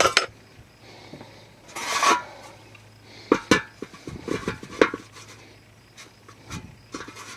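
Light metallic clinks and knocks of a thin metal full moon hubcap being handled and set down on a round air filter element over a carburettor, with a brief rustling scrape about two seconds in and a cluster of quick taps in the middle.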